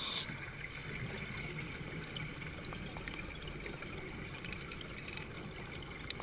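Steady trickling of running water, with small scattered clicks.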